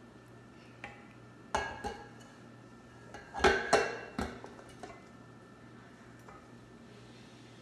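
Kitchenware being handled: a few sharp knocks and clinks of utensils and a mixing bowl, loudest in a cluster about three and a half seconds in.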